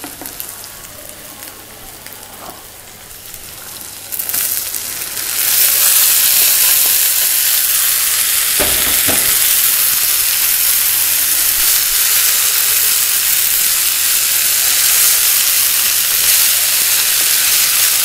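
Boiled cauliflower pieces frying in hot oil and onion-tomato masala in a clay pot, with a faint sizzle that swells to a loud, even sizzle about five seconds in as they are stirred. Two quick knocks, likely the spatula against the pot, come about halfway through.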